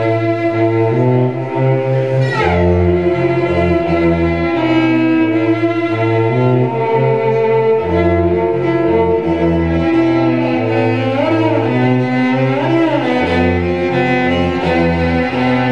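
Cello played with the bow: a low bass line repeating in steady blocks under a higher melody, with a long downward slide about two seconds in and a few short sliding notes later on.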